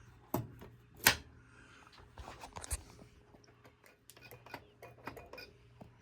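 Sharp clicks and knocks of pinball playfield mechanisms (coil plungers and linkages) being worked by hand, the loudest knock about a second in, followed by lighter scattered clicking.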